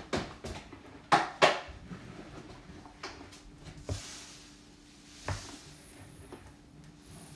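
Clicks, knocks and short scrapes of a metal food can being worked open by hand at its lid, with two sharp knocks a little after a second in.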